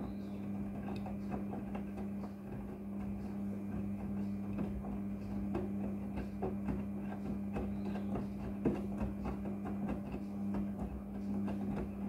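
Front-loading washing machine tumbling a load of jeans in soapy water: a steady motor hum under irregular sloshing and splashing as the wet clothes drop in the turning drum.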